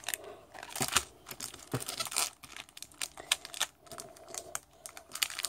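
A package being opened by hand: irregular crinkles, rustles and sharp clicks, with some tearing.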